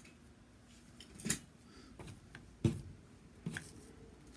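Thin plastic sheet being handled and rustled on a table: a few short crinkles and clicks, with a soft knock about two and a half seconds in that is the loudest sound.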